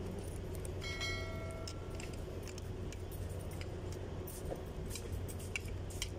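Small metal parts of a drum brake shoe clicking and clinking as they are handled and fitted, with one brief metallic ring about a second in. A steady low hum lies underneath.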